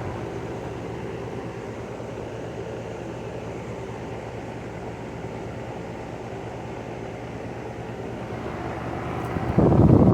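Steady hum of running outdoor air-conditioning condenser units, compressors and fans droning together. About nine and a half seconds in, loud wind buffeting on the microphone cuts in over it.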